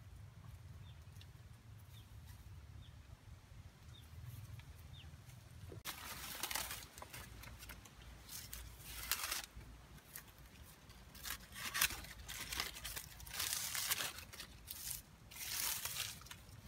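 Several bursts of rustling and tearing from a young banana plant being cut and pulled at its base, starting about six seconds in. Before that, a few faint short chirps.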